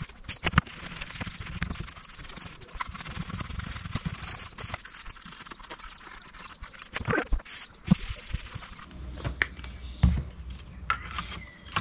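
A cloth rag rubbing and wiping over a plastic tailgate handle, cleaning it with brake cleaner, followed by a few light knocks and clicks as the plastic parts are handled on cardboard.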